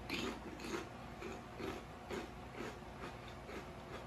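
A person chewing food with the mouth close to the microphone, soft wet mouth sounds about two chews a second.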